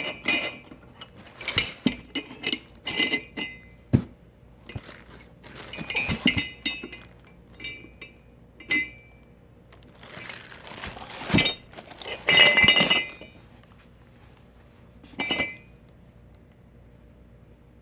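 Metal meat grinder parts, such as the cutting plates and blade, clinking and knocking against each other as they are unpacked and handled, in irregular bursts of ringing clinks, with softer rustling between.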